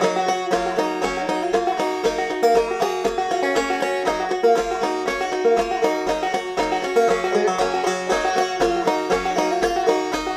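Instrumental background music with quick, busy notes over a steady bass beat.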